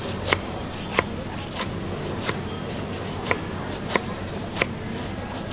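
A knife chopping pineapple on a cutting board: about seven sharp chops, spaced roughly two-thirds of a second apart, over a steady low hum.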